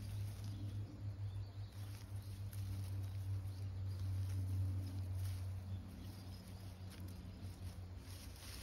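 Soft rustling of weeds and grass as a cat on a leash pokes through the undergrowth, over a steady low hum.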